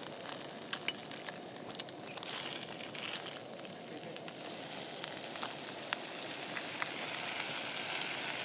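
Grayling frying in a pan on a camp stove: steady sizzling with scattered crackles, growing louder about halfway through.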